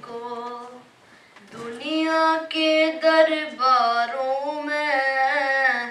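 A boy's solo voice singing an Urdu manqabat, a devotional poem, with no accompaniment. A short phrase ends about a second in, and after a brief pause he sings one long phrase of held, wavering notes.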